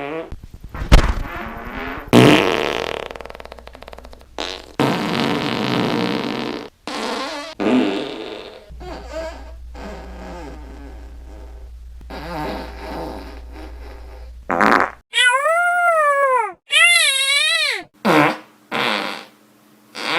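A string of fart sound effects, some long and some short, one after another. Near the end come several high-pitched, wavering cries.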